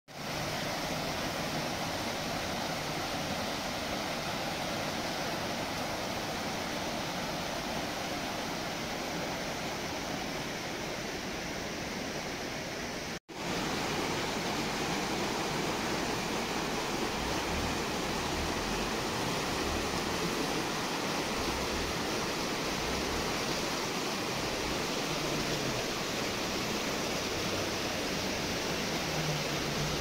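Shallow, rocky mountain river rushing steadily over stones and boulders, a constant even wash of water. It cuts out for a split second about a third of the way in, then carries on the same.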